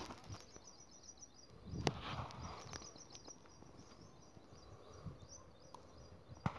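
Faint outdoor ambience of small birds chirping in quick, high repeated series. A brief rustle comes about two seconds in, and sharp handling clicks come then and again near the end.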